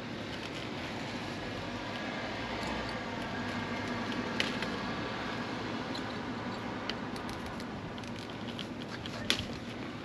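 E-bike wiring harness cables and plastic connectors being handled, giving a few sharp clicks, the loudest near the end, over a steady background hum.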